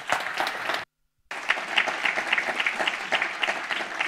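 Audience applauding, a dense run of hand claps, broken by a brief total dropout of sound about a second in.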